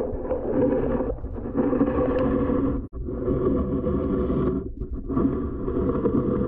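Muffled water rumbling and sloshing against a camera held underwater beside a canoe, while a bass is let go. The noise briefly cuts out a few times.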